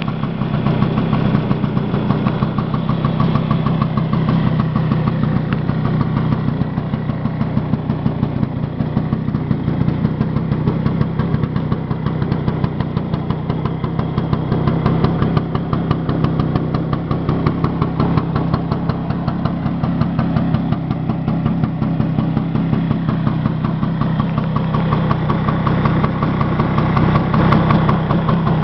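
1966 Vespa Sprint 150's single-cylinder two-stroke engine idling steadily, with a rapid, even firing beat.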